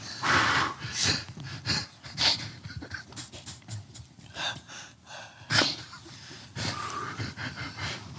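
Breathy panting: a run of short, noisy breaths and gasps, the louder ones coming about a second apart.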